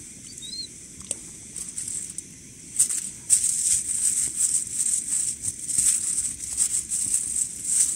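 Plastic food wrapper crinkling in quick irregular bursts as it is handled, busier from about three seconds in.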